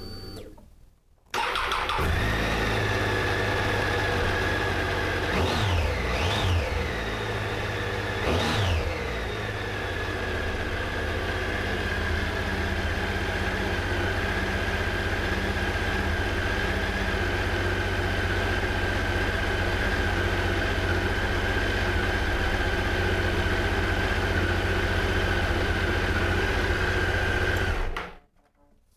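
Triumph Tiger 800's three-cylinder engine starting, blipped three times, idling, then switched off near the end. It is run briefly after a coolant drain and refill.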